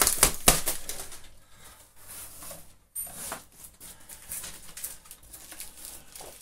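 Plastic bags and packaging rustling and crinkling as they are handled and pulled apart, loudest at the start and breaking off briefly about three seconds in.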